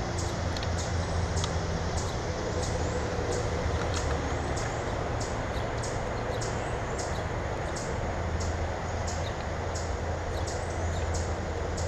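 A bird repeating short, sharp, high chip notes, about three a second, over a steady low hum.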